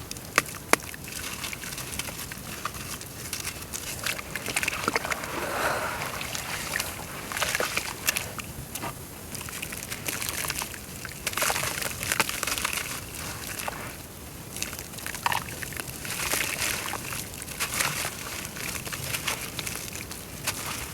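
Dry brown dirt crumbling in water: a steady crackling and fizzing with many small clicks and some sloshing, in swells, with two sharp cracks in the first second.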